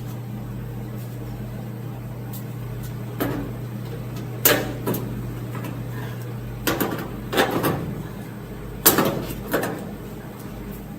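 Metal clunks and latch clicks of a 1965 Chevrolet C10 cab door being shut and opened to check its gap against a freshly fitted rocker panel. The clunks come as about six separate knocks over a steady hum, which stops about seven seconds in.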